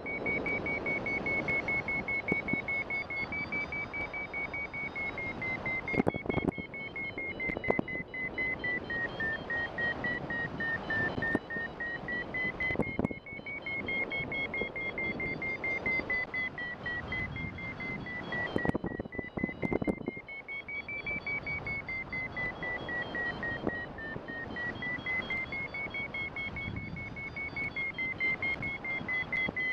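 Paragliding variometer beeping rapidly at a high pitch that slowly drifts up and down, the sign of a strong, sustained climb as the glider is drawn up into cloud. Wind rushes past underneath.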